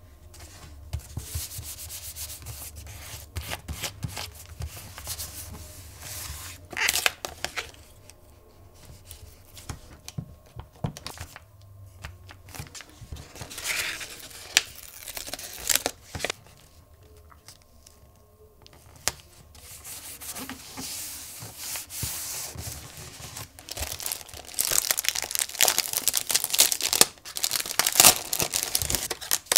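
Close-up paper handling: hands rubbing and pressing paper down onto a journal page, and a sticker peeled off its backing sheet with short rustles and clicks. Near the end, a denser, louder crinkling as a clear plastic sheet is handled.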